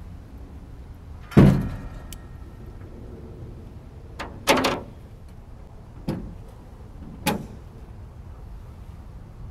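Knocks and clunks against a jon boat's hull: one loud clunk with a short ring about a second in, then several lighter knocks over the next few seconds.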